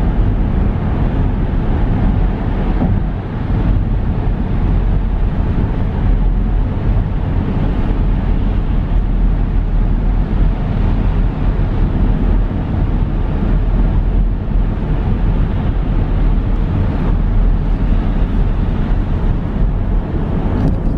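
Steady road noise of a car driving on a highway, a low rumble of tyres and engine heard from inside the car.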